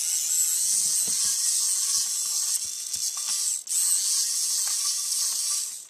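Warrior compact cordless screwdriver's small battery motor and gear reduction running with a steady high whir for nearly six seconds, with a brief dip about three and a half seconds in, stopping abruptly near the end.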